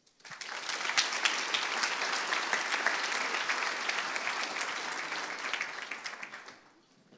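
Audience applauding: a dense patter of many hands clapping that starts right away, holds steady for about six seconds and dies away near the end.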